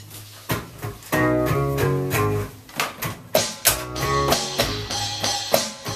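Hollow-body electric guitar playing a rhythmic chord riff, with sharp percussive hits coming in regularly from about three seconds in.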